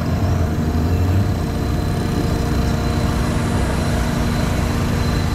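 Off-road 4x4 vehicle engine running steadily, with no revving.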